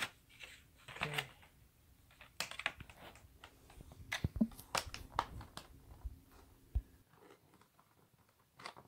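Clear plastic blister tray from a Pokémon card collection box and its cardboard box being handled: scattered light clicks and crackles of stiff plastic, dying down about seven seconds in.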